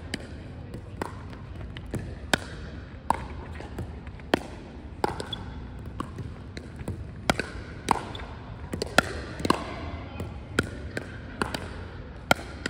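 Pickleball paddles hitting a plastic ball in a rally, with some of the ball's bounces on the hardwood floor: sharp pops coming irregularly about once a second, each ringing briefly in the large hall.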